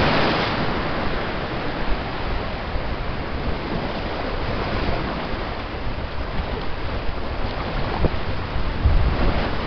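Lake waves washing and splashing against shoreline boulders and old wooden pilings, with wind rumbling on the microphone.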